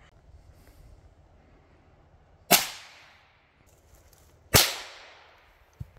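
Two rifle shots about two seconds apart, each a sharp crack with a trailing echo. A faint click follows near the end.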